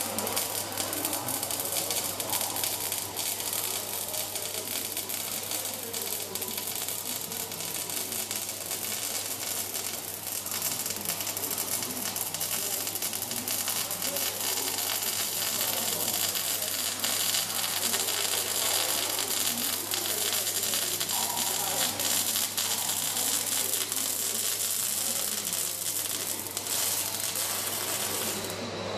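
Robotic welding arc crackling and sputtering steadily, over a steady low electrical hum.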